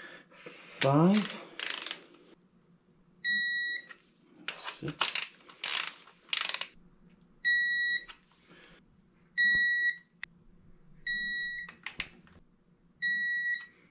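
Digital torque wrench beeping as each crank-strap bolt reaches its 30 ft-lb setting: five beeps, each under a second long, a couple of seconds apart, with the wrench ratcheting and clicking on the bolts in between.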